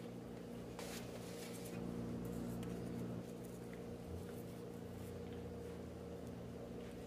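A steady low hum in a small room, with a few faint rustles and small clicks as a slice of bread is pulled apart and handled.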